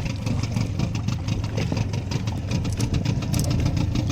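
Fishing boat's engine running steadily at sea, a low continuous drone with a clatter of small ticks over it.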